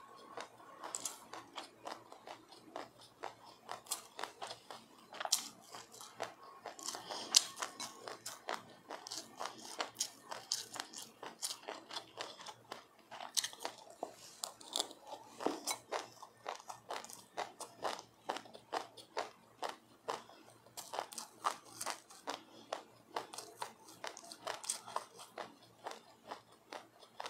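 A mouthful of sesame seeds with passionfruit being chewed close up: a dense, irregular stream of small crisp crunches and clicks, with louder crunches about four and seven seconds in.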